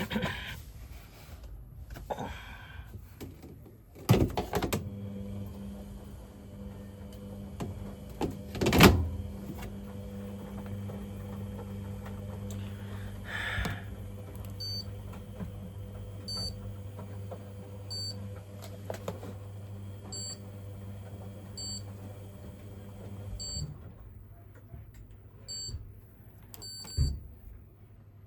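Hoover 300 Lite tumble dryer: a couple of clunks, the loudest about 9 seconds in, then a steady low motor hum, with short high electronic beeps sounding repeatedly at uneven intervals in the second half.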